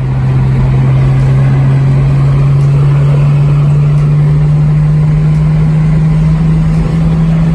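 A car's engine and exhaust running under way with a steady, loud note whose pitch rises slowly, as in gentle acceleration.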